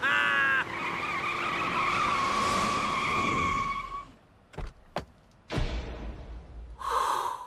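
Car tyres squealing in one long skid of about three and a half seconds, just after a man's laughter breaks off. Then come two sharp clicks and a low rumble.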